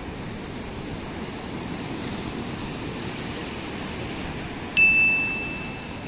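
Surf washing over shoreline rocks, a steady rush of water. About five seconds in, a single bright bell-like chime rings out, the loudest sound here, and fades within about a second.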